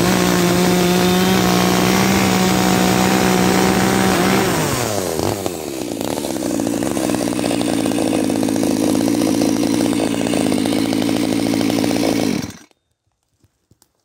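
IBEA 3900 HD 38 cc two-stroke pruning chainsaw held at full throttle through a cut in a log. Its revs fall away about four seconds in, and it runs steady at a lower speed until the sound cuts off suddenly near the end.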